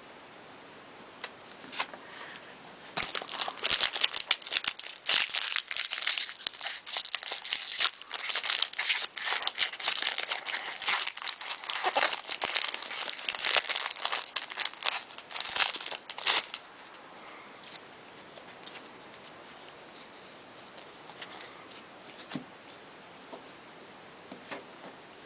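Baseball card pack wrapper crinkling and tearing as it is opened, a dense run of crackles lasting about thirteen seconds, then only faint occasional clicks.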